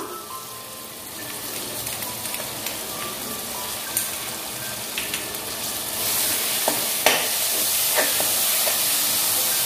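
Onions and tomatoes sizzling in hot oil in an aluminium pressure cooker, with a few clinks and scrapes of a steel slotted spoon against the pan. The sizzle grows louder about six seconds in as ginger-garlic paste is stirred through.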